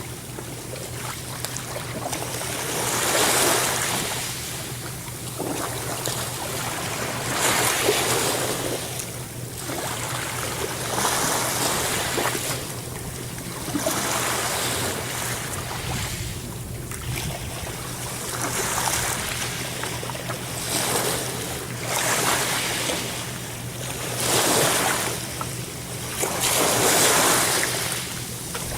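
Ocean waves breaking and washing on the shore, one surge after another every few seconds.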